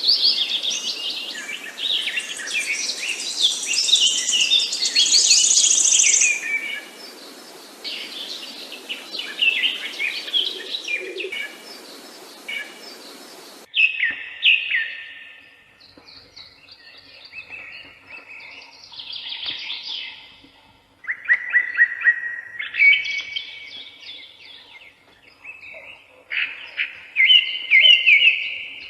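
Several songbirds chirping and singing, with quick overlapping chirps and trills. About 14 seconds in, the steady background hiss cuts off abruptly, and after that the birdsong comes in separate short phrases.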